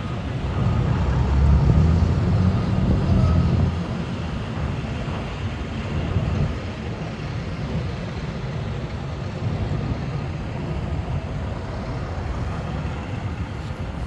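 Wind buffeting the microphone over a steady rumble of street traffic, the buffeting heaviest in the first few seconds.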